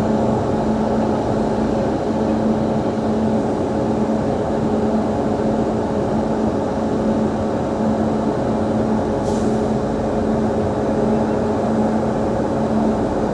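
Steady electrical and mechanical hum of a standing WAP7 electric locomotive, its blowers and transformer running with a constant low drone and steady tones, and a brief faint hiss about nine seconds in.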